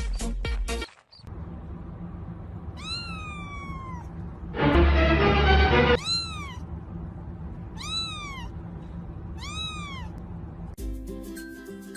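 A cat meowing four times: one long falling meow, then three shorter meows that rise and fall. Between the first and second meow comes a loud harsh rasping noise lasting about a second and a half. Music with a beat plays at the start and comes back near the end.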